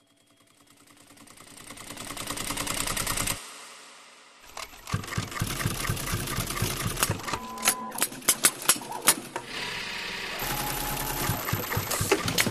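Industrial sewing machine stitching: a rapid, even patter that builds louder and stops abruptly. After a short lull it runs again, with sharp mechanical clicks and snaps over its running.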